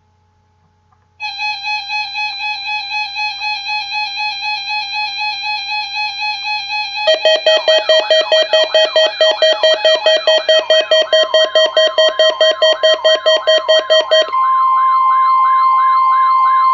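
Weather radio receiver sounding its alert alarm for a Required Weekly Test. A pulsing electronic tone starts about a second in, a louder warbling, siren-like alarm with fast beeps takes over about halfway, and a steady high warning tone, the NOAA 1050 Hz alarm tone, holds through the last few seconds.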